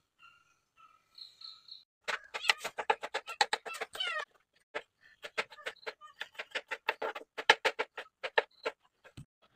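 Kitchen knife chopping okra on a wooden cutting board: a fast run of sharp knocks, several a second, starting about two seconds in. The cutting moves on to a tomato near the end. A few faint chirps come before the chopping starts.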